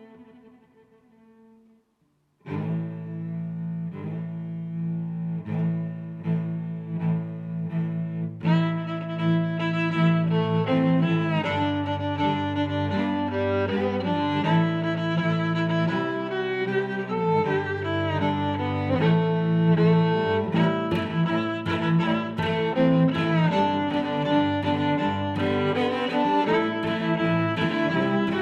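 Background music: after a short near-silent pause it starts about two and a half seconds in with a steady beat, and grows fuller about eight seconds in.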